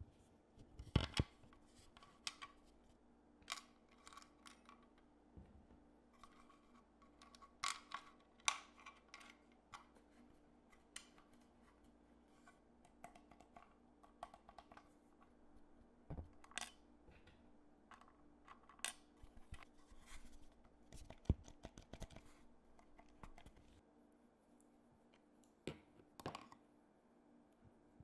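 Irregular sharp clicks and light scrapes, with the loudest clicks about a second in and about two-thirds of the way through: small parts and hand tools being handled on a workbench.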